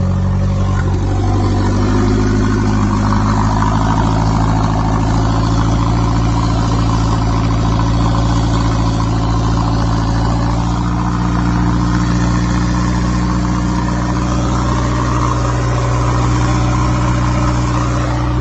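Turbocharged Honda B18B 1.8-litre inline-four running on its first start after the turbo install. It picks up speed a little in the first couple of seconds, then runs at a steady idle.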